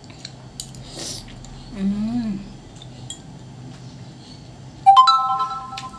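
Metal spoon and fork against a ceramic bowl: a few light taps, then a sharp clink about five seconds in that rings for about a second. A brief voiced hum about two seconds in.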